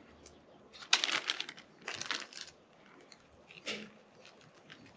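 A small plastic zip-lock bag crinkling in the hands in three short bursts as dry seasoning is shaken and pinched out of it.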